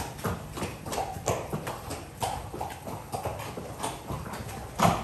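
Horses' hooves clip-clopping on a concrete stable floor as several horses walk past: an irregular run of hoof knocks, several a second, with one louder strike near the end.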